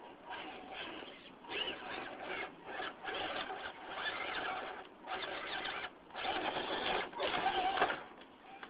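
Losi Night Crawler RC rock crawler's electric motor and gear drive whining in stop-start bursts of throttle as it climbs over rocks, loudest in the last few seconds.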